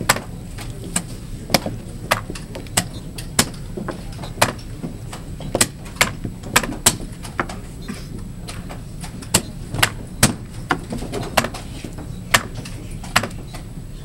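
Rapid, irregular clacks of a blitz chess game: plastic chess pieces set down hard on a vinyl board and the buttons of a digital chess clock slapped after each move, about one or two clacks a second over a steady low rumble.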